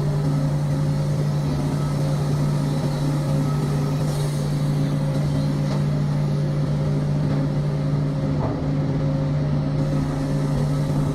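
An engine running at a steady speed, a constant low-pitched drone with no change in pitch.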